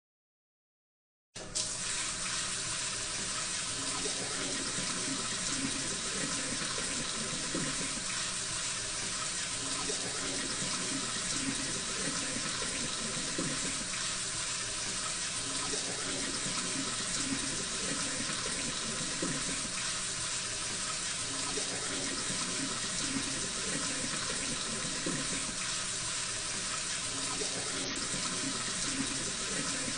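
Dental suction and the water spray of an ultrasonic scaler during tartar removal: a steady, even water-like hiss that starts abruptly about a second and a half in.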